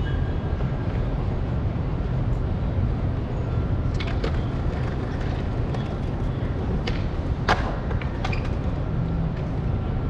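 Steady low rumble from a handlebar-mounted camera on an Apollo Explore electric scooter on a brick plaza, with a few sharp clicks and knocks, the loudest about seven and a half seconds in.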